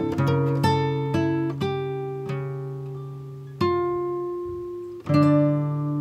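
Background music: an acoustic guitar plucking single notes that ring and fade, a quick run of notes in the first two seconds, then a few slower, longer-held ones.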